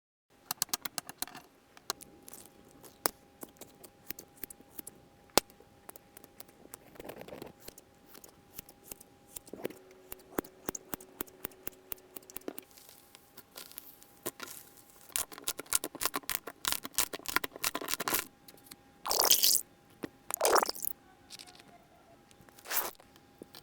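Slime being squished and worked by hand: many small sharp clicks and pops, with a few longer, louder squelches near the end.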